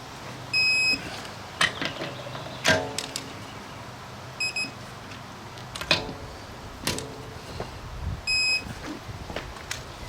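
Digital torque wrench beeping as lug nuts are tightened to 115 ft-lb: a steady beep about half a second in, a short double beep midway and another steady beep near the end, signalling the set torque is reached. Sharp metallic clicks and knocks of the wrench and socket on the nuts come between the beeps.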